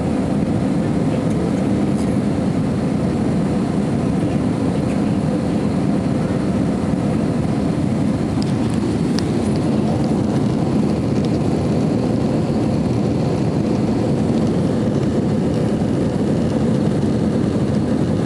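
Steady roar of a jet airliner's engines and rushing air, heard from inside the passenger cabin during the climb after takeoff.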